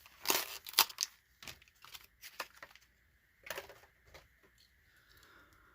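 Plastic blister pack and cardboard backing of a diecast car package being torn and crinkled open: a burst of crackling and tearing with sharp clicks in the first second, then scattered crinkles and rustles.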